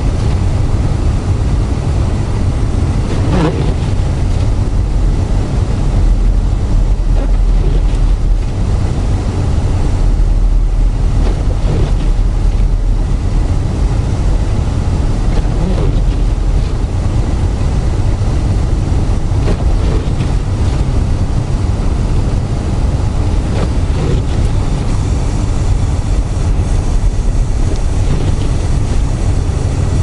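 Steady low rumble of a car's engine and tyres on a snow-covered road, heard inside the cabin. The windshield wipers sweep every few seconds.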